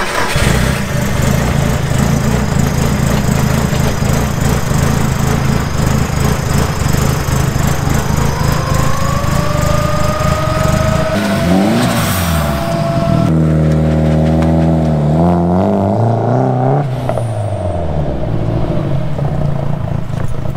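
Nissan S13 drift car's engine running loud and steady while warming up. About halfway through a rising whine comes in, then the engine note swings up and down several times as it is revved and the car pulls out.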